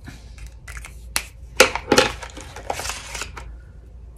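Molotow Blackliner fineliner pens being handled: sharp clicks and knocks about a second in as a pen is put down on the wooden desk, then rustling with small clicks as the next pen is drawn from its pack.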